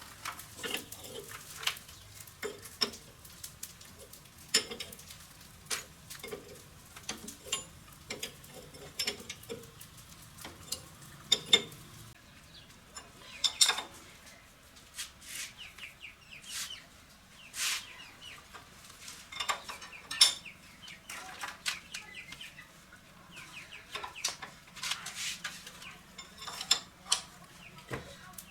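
Irregular light clinks and knocks of metal tools and engine parts being handled during diesel engine repair work.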